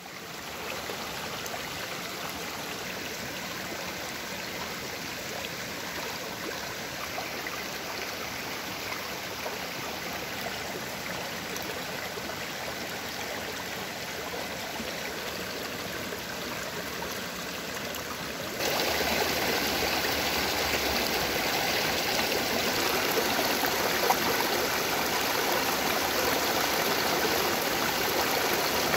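Shallow mountain stream running and splashing over stones, a steady rush of water that jumps suddenly louder about two-thirds of the way through.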